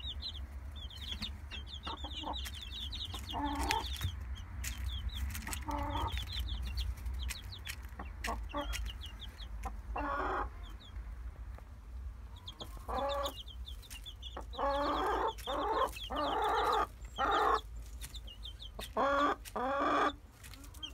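Polish tolbunt chicks peeping rapidly and almost without pause, with their broody salmon Faverolles hen clucking in short bouts that grow louder and more frequent in the second half.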